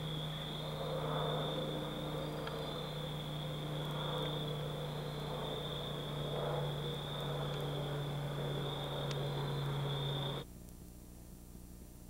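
Steady high-pitched trilling of night insects over a low steady hum, both cutting off abruptly near the end.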